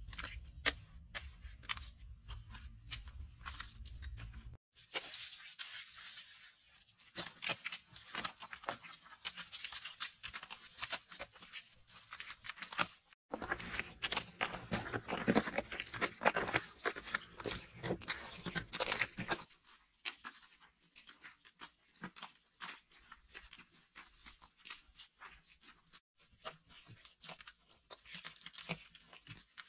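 Bare hands pressing, patting and smearing wet mud plaster over a floor and wall, a dense run of small slaps and scrapes. The sound changes abruptly several times where short takes are cut together.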